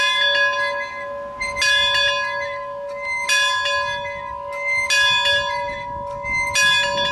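Railroad locomotive bell hung in a church steeple, tolling with a strike about every second and a half, five strikes, each one ringing on into the next.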